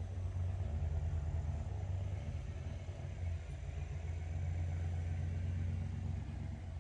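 Hot rod's V8 engine idling with a steady, low rumble.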